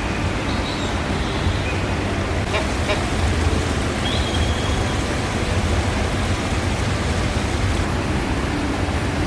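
Steady rush of falling or running water, an even hiss without breaks, with a couple of brief faint high chirps over it.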